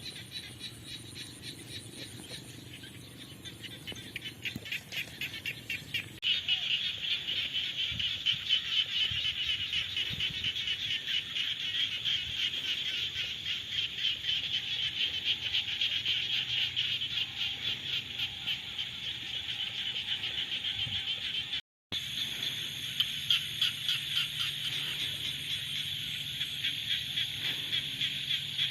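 Chorus of frogs calling in the rainy season: many high, rapid pulsing trills overlapping into one continuous din. The chorus gets louder about six seconds in, and the sound cuts out briefly near the end.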